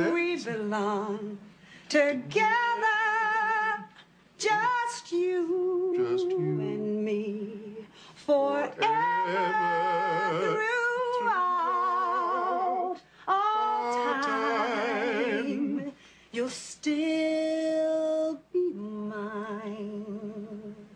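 A woman singing solo with no accompaniment, in phrases separated by short pauses, with wide vibrato on the held notes.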